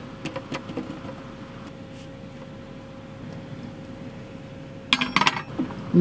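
Silicone spatula scraping food out of a non-stick skillet onto a plate: soft scrapes and taps in the first second, over a faint steady hum. About five seconds in there is a short cluster of sharper clicks, like a fork on the plate.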